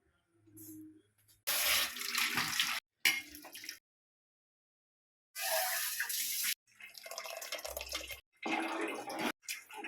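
Water running from a kitchen tap in several short bursts of about a second each, each starting and stopping abruptly.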